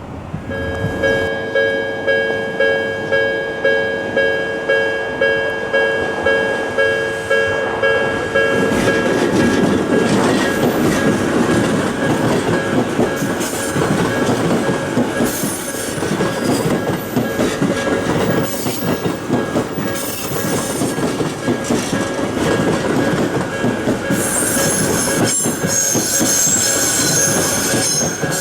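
Japanese level-crossing alarm ringing in steady pulses, about two a second. About eight seconds in, a JR East E233-2000 series electric train starts passing over the crossing with a continuous rush of wheel and rail noise. A high-pitched squeal comes in near the end.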